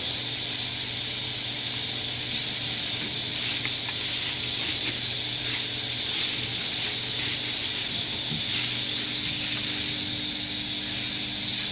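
Microwave oven running: a steady low hum with an even rushing hiss from its fan.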